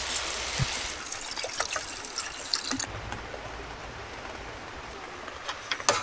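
Water trickling and splashing steadily, with scattered small drips and ticks.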